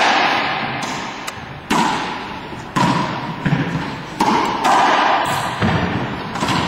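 A racquetball rally: the ball cracks off racquets and the walls in a series of sharp hits about a second apart, each ringing out in the long echo of the enclosed court.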